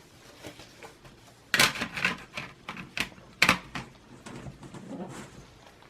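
Clicks and knocks of a 2.5-inch SSD being handled and fitted back into a laptop's drive bay, a quick run of sharp taps with the two loudest about a second and a half in and near three and a half seconds, followed by softer handling noise.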